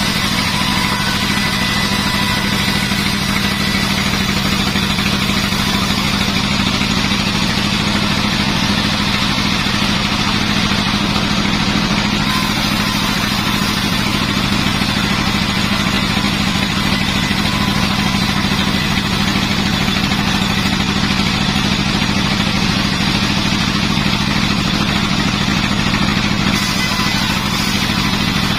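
Sawmill machinery running steadily with an engine-like drone.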